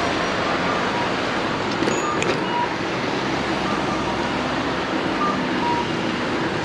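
Steady rushing road and wind noise heard from a moving bicycle on a town street, with a couple of faint clicks about two seconds in.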